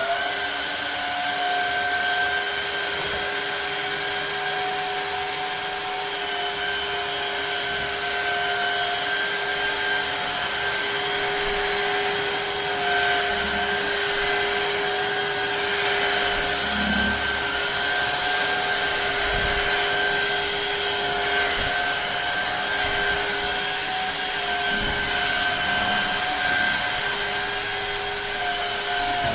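Shark HydroVac MessMaster wet-dry vacuum mop running steadily with a high motor whine over a hiss of suction. Its motor finishes spinning up at the very start and begins to wind down at the very end.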